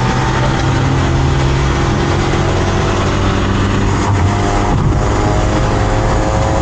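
Motor vehicle engine running steadily while driving, over a dense rush of road and wind noise; its pitch shifts slightly about five seconds in.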